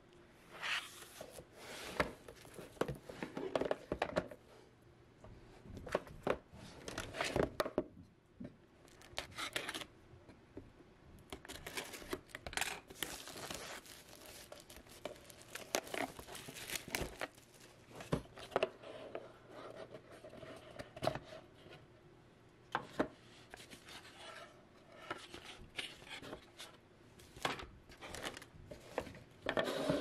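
Plastic shrink-wrap crinkling and tearing as it is pulled off a jigsaw puzzle box, amid irregular rustles and taps as the cardboard box is handled. Near the end, loose puzzle pieces click and shuffle on the table.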